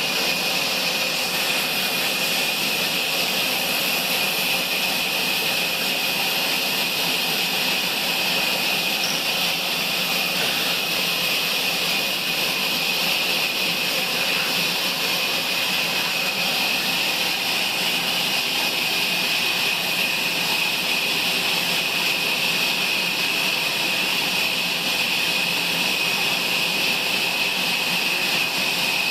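Table sawmill saw running steadily: an unbroken, loud high-pitched whine and hiss that does not change.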